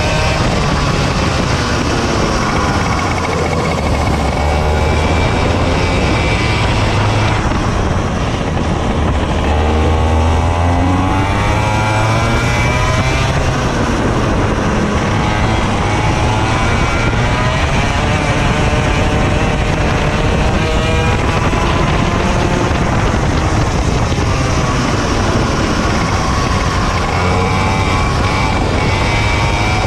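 Racing kart engine heard onboard at racing speed. Its revs climb and drop again and again as the kart accelerates out of corners and lifts into the next ones.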